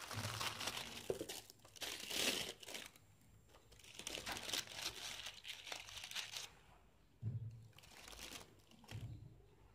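Cellophane wrap and the silver foil cups in a box of dates crinkling as the box is unwrapped and a date is picked out, in bursts over the first six seconds or so. Later come a couple of soft low bumps from handling.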